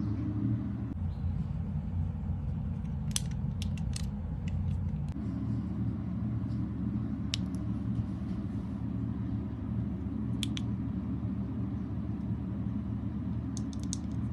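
Scattered light clicks and taps of a small plastic mini camera and its packaging being handled, a cluster of them a few seconds in and more near the end, over a steady low hum.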